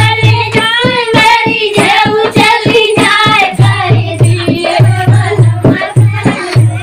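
Rustic Hindi folk dance song (dehati nach geet): a woman's high singing voice over a steady drum beat, about three beats a second.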